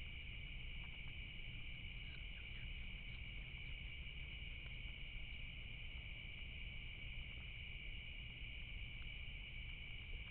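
Steady night insect chorus, a continuous high trilling that holds without a break.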